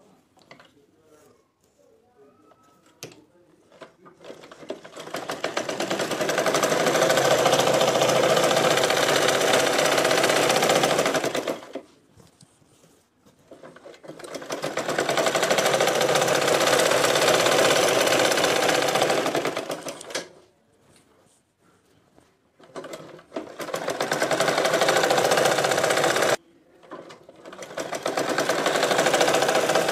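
Domestic sewing machine stitching a seam in about four runs of several seconds, each picking up speed and then running steadily at full speed. Short pauses between the runs hold light clicks of fabric handling.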